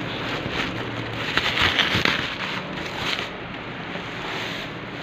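Plastic wrapping and cardboard packaging crackling and rustling as they are handled, with a few sharper crackles.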